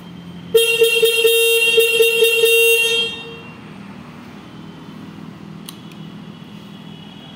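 A Royal Enfield Shotgun 650's electric horn sounds once, a loud steady honk lasting about two and a half seconds, starting about half a second in.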